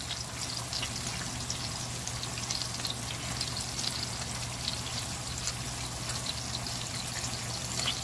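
Egg-marinated sole fillets frying in olive oil in a pan: a steady sizzling hiss with scattered small crackles and pops.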